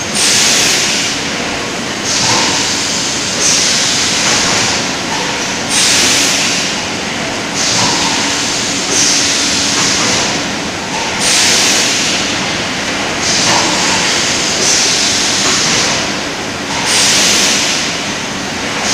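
Bottling-line machinery running: a steady mechanical noise with a faint hum, and a sharp hiss that starts about every two seconds and fades over a second or so.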